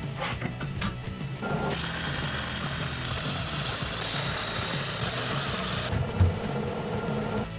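MIG welder arc running on steel at a car differential for about four seconds, a steady hiss that starts a couple of seconds in and cuts off near six seconds, over background music. A single knock follows just after the arc stops.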